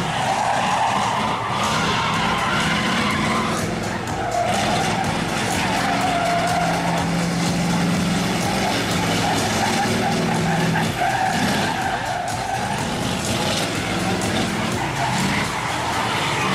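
Mercedes-Benz race truck's diesel engine revving hard, its note rising and falling, as the tractor unit spins in circles with its tyres skidding on wet pavement.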